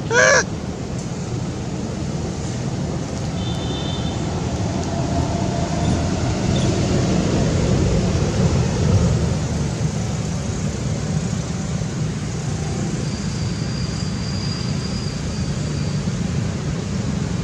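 A long-tailed macaque gives one short, high, wavering call right at the start. After that, a steady low rumble like distant road traffic runs underneath, with a couple of faint high chirps.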